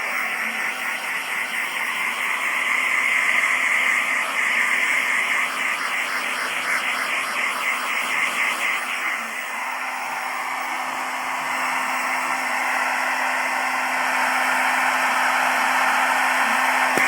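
Hair dryer running steadily: a loud rush of air over a constant low motor hum. For about the first eight seconds the rush pulses rhythmically.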